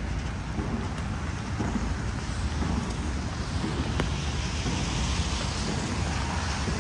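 Steady rain with traffic on a wet street; the hiss of a car's tyres on the wet road swells about halfway through. A single sharp tick about four seconds in.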